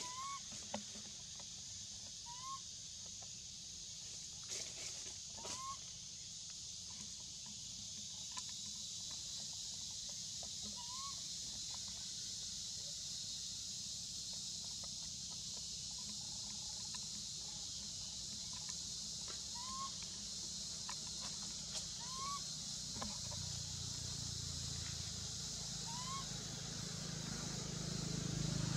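Forest ambience: a steady high-pitched drone with a short rising chirp from an animal every few seconds, a few faint clicks, and a low hum that comes up near the end.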